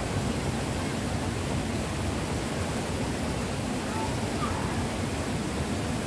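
Waterfall cascading over granite boulders into a rocky stream: a steady, even rush of falling water.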